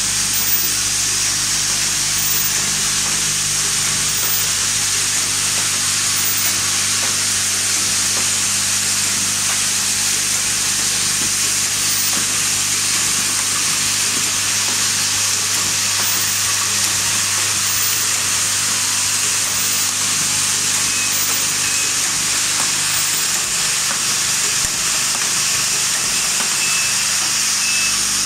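Steady running noise of automatic assembly-line machinery: a constant high hiss over a low electrical hum, unchanging throughout.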